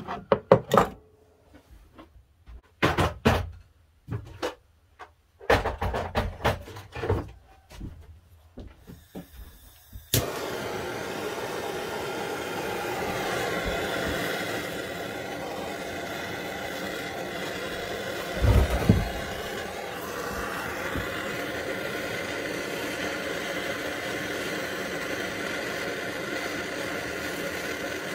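Hand tools clatter and knock on a wooden workbench, then about ten seconds in a handheld propane torch is lit and its flame hisses steadily, heating a rusted, seized bolt to free it. A single low thump sounds about two-thirds through.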